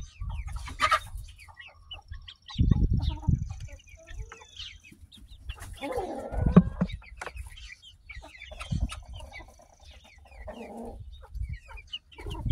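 Young Lavender Orpington chickens clucking in short calls while pecking at feed, with low bumps and rumble on the microphone.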